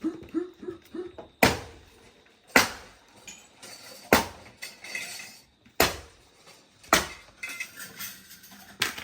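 Six sharp hammer blows at an uneven pace, about one to two seconds apart, each ringing briefly.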